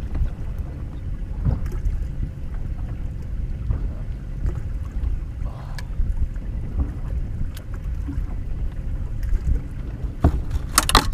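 Steady low wind rumble on the microphone aboard a fishing boat on open water, with a few faint knocks and a short burst of sharp clatter near the end.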